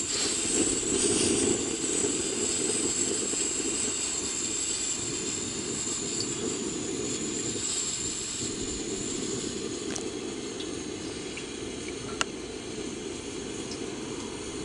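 Cooking oil poured in a thin, steady stream into a steel wok, with a continuous hiss. A couple of small ticks sound late on.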